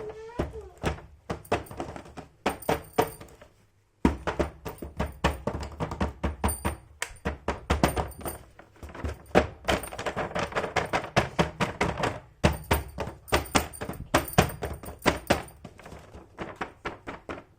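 Rapid, irregular clicks, taps and light knocks of small plastic toy pieces and packaging being handled during an unboxing. They stop briefly a little before four seconds in, then start again suddenly.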